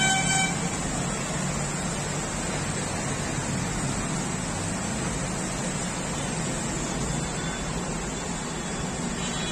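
Heavy monsoon rain falling in a steady, even hiss over a flooded city street. A brief tone sounds at the very start.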